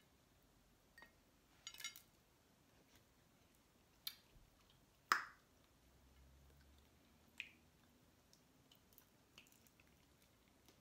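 Near silence broken by a handful of short cracks and clicks as snow crab leg shells are snapped and picked apart, the sharpest about five seconds in.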